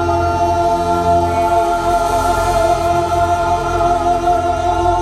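Live music: several voices holding one long sustained chord, with a steady low backing underneath.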